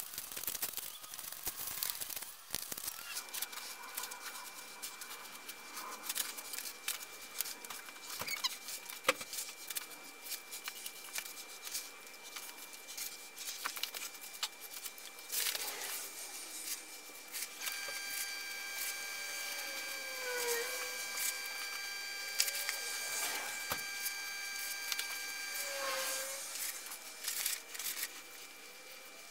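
Gritty scraping and crunching of a damp perlite-and-cement mix, stirred with a trowel in a plastic tub and packed by gloved hands around a cling-film-wrapped exercise ball. A faint steady high tone runs underneath from a few seconds in.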